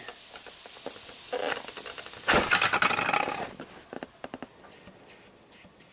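Compressed air from a cylinder leak-down test hissing out of a Volvo S60's tailpipe, then, a little over two seconds in, forcing past the rubber plug held in the pipe in a loud sputtering burst for about a second before dying away. The air is getting through the exhaust valves: they are leaking badly.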